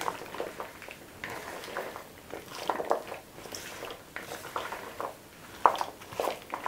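Dressed pasta salad being stirred with a silicone spatula in a plastic bowl: irregular wet squishing and soft scraping as the oiled pasta, fish and vegetables are turned over, with one louder scrape near the end.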